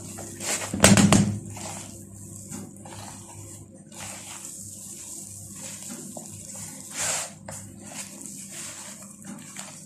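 Hands rubbing butter into flour for a crumbly biscuit dough in a plastic bowl: repeated rustling, scraping strokes of dough against the bowl's side. A louder knock comes about a second in, and another loud stroke comes near the end.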